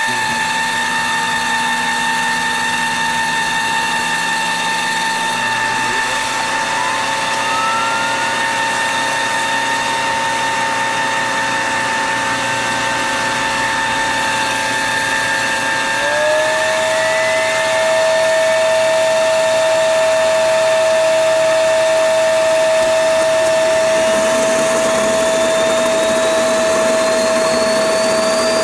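Turbocharger of a homemade gas turbine jet engine spinning with a steady high-pitched whine made of several tones. The pitch glides upward a couple of times and the sound grows louder partway through, and near the end a tone climbs steadily as the turbo speeds up.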